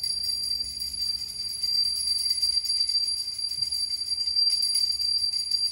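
Handheld puja bell rung rapidly and continuously, its clapper striking many times a second over a steady high ring.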